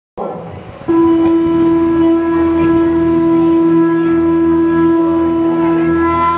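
Conch shell (shankh) blown in one long, steady note that starts about a second in, over a low musical drone, opening a recorded Ganesh devotional song.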